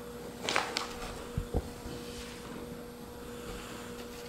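Steady low hum of a quiet room, with a brief rustle about half a second in and two soft low thuds about a second and a half in, as a person moves with a large book in hand.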